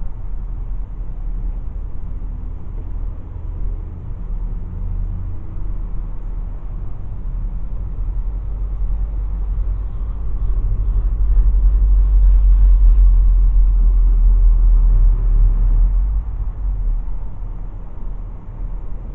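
Car driving, heard from inside the cabin: a steady low rumble of engine and road noise that swells louder from about ten seconds in, then eases off again a few seconds before the end.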